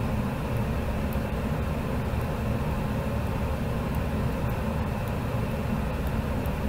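Steady low hum and hiss of room background noise, unchanging throughout, with no speech.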